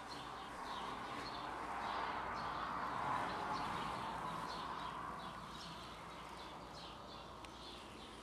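A bird chirping over and over, short high downward-slurred notes about twice a second, faint, over a soft rushing background noise that swells in the middle.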